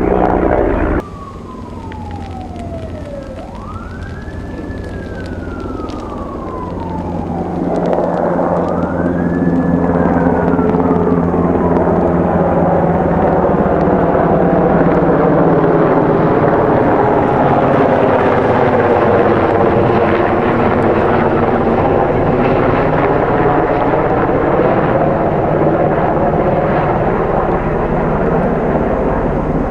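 Emergency-vehicle siren wailing, its pitch gliding down and then rising and falling twice in slow sweeps. A louder, steady engine rumble with wavering tones builds up and holds through the rest.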